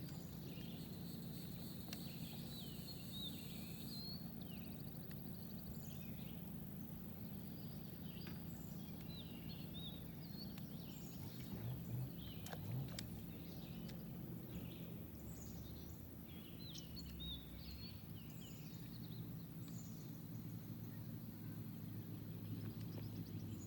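Birds singing and chirping, many short calls overlapping throughout, over a steady low rumble.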